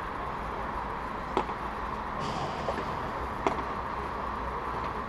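Padel ball struck by rackets during a rally: two sharp pops about two seconds apart, with a fainter knock between them, over steady background noise.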